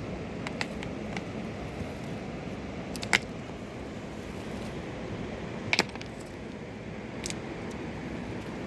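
Steady rushing of a fast-flowing mountain river, with a few sharp knocks or clicks over it: the loudest about three seconds in, another just before six seconds.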